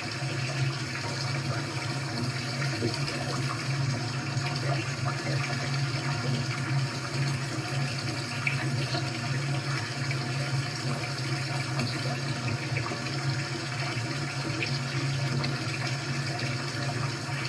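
Recording of running water played back through a computer's speakers: a steady, unbroken rush of water with a constant low hum underneath.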